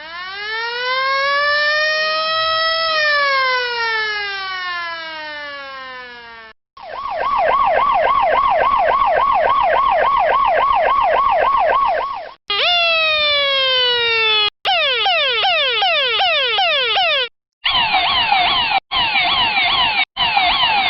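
A series of siren-type alarm sound effects played one after another. First comes one slow wail, rising for about three seconds and then falling. Then a fast warble at about four rises a second, then repeated falling sweeps that speed up partway, and finally falling sweeps chopped by short gaps.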